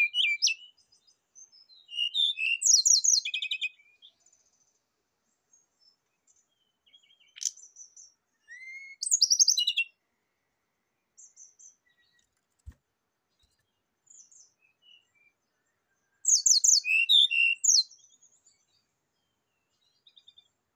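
Brown-chested jungle flycatcher singing in bursts of rapid, high chattering notes, each burst about two seconds long, with pauses of several seconds between them.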